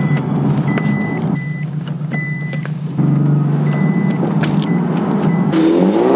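Nissan 370Z's 3.7-litre V6 engine running on the move, heard from inside the cabin as the gear lever is worked through the gears, with short high tones coming and going. Near the end the car drives past outside, the engine and tyre noise swelling.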